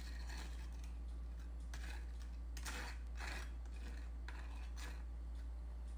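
Table knife spreading yogurt across a cracker: a run of short, soft scrapes at uneven intervals, over a steady low hum.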